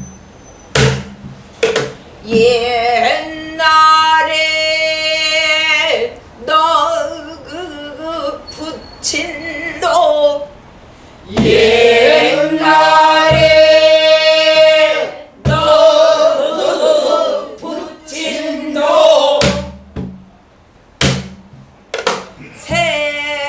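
A woman singing pansori in long held notes with a wide, shaking vibrato, between shorter sung phrases. A few sharp strikes on a buk barrel drum punctuate the singing.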